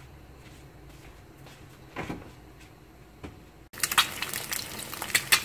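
A faint low hum with a single soft knock about two seconds in, then, from a sudden cut near the end, an egg frying in hot oil in a pan, crackling and spattering loudly.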